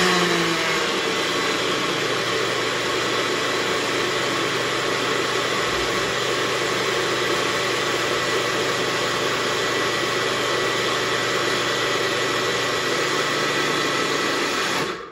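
Single-serve blender motor running steadily as it blends a liquid egg mixture, then cutting off abruptly near the end.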